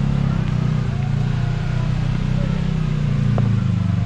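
Side-by-side UTV engine running under throttle on a rock climb, its pitch shifting a little as the revs change, with one sharp click a little over three seconds in.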